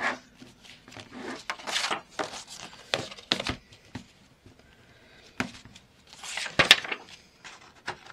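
Paper pages of a ring-bound journal rustling as they are handled, with several sharp clicks from its metal binder rings being opened and a punched page threaded on. The loudest click comes about two-thirds of the way through.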